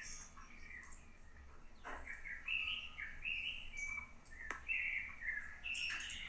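Small songbirds chirping and singing in short repeated phrases, with a couple of sharp clicks in between.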